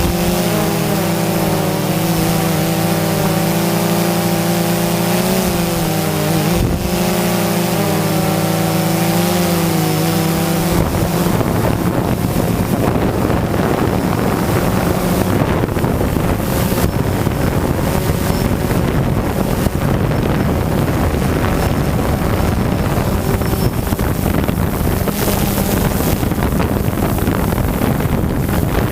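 DJI Phantom 2 quadcopter's motors and propellers humming at a steady pitch, wavering slightly, with a single short knock partway through. About eleven seconds in, the steady hum gives way to rushing wind noise on the microphone.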